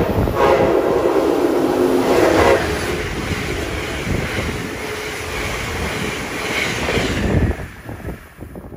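Amtrak Northeast Regional train's horn sounding a long blast of several notes at once as the train comes in, cutting off about two and a half seconds in. Then the noise of the passenger cars passing at speed, which drops away suddenly near the end as the last car clears.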